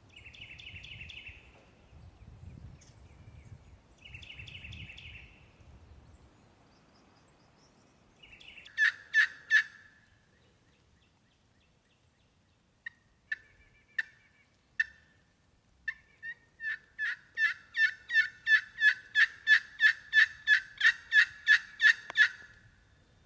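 Turkey calling: two rattling gobbles early on, then a short run of about five loud yelps. After a few single clucks comes a long series of about two dozen yelps, some four a second, growing louder before they stop.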